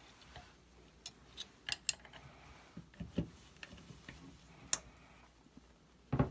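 Irregular light metallic clicks and taps of a 13 mm open-end wrench working the freshly loosened valve out of an air rifle's reservoir, with a louder knock near the end.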